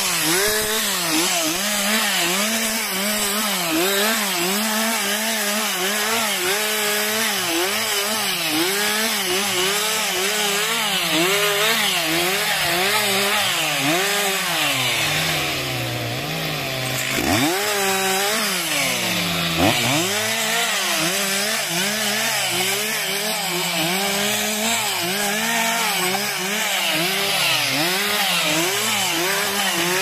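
Stihl MS 361 two-stroke chainsaw cutting wood under load, its engine pitch rising and falling about once a second. About halfway through, the revs sag for a couple of seconds, then rise sharply again.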